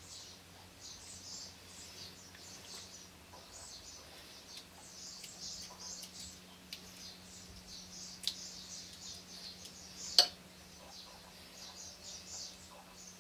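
Soft, faint wet scraping and rustling as a metal spoon scoops raw rice-and-tomato filling into a zucchini flower held in the hand. A sharp clink of the spoon against the glass bowl comes about ten seconds in.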